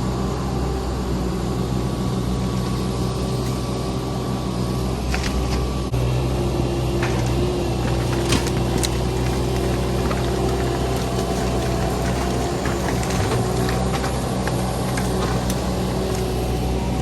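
Truck running down the road, a steady engine drone with a jump in engine note about six seconds in. Scattered sharp clicks and rattles sound over it.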